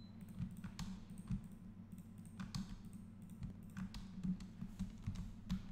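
Computer keyboard and mouse clicks tapping irregularly as shortcuts are pressed, over a steady low hum.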